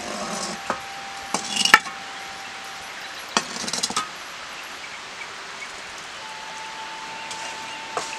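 A metal ladle knocking and scraping against an iron kadai while a bubbling liquid is stirred, with a few sharp clinks, the loudest just under two seconds in and a quick run of scrapes around three and a half to four seconds. Soft background music holds long notes underneath.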